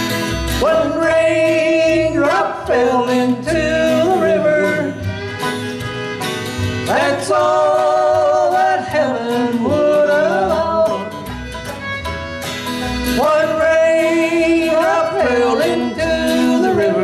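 Bluegrass band playing live, with fiddle, banjo, guitar and upright bass.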